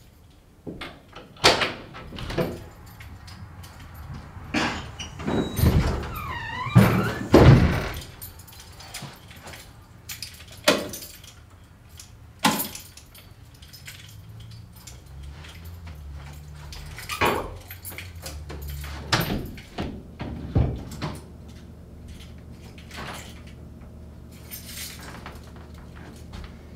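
A house's front door being unlocked and opened: a run of clicks and knocks, with a creaking hinge squeal about six seconds in. A few more knocks follow later over a low steady drone.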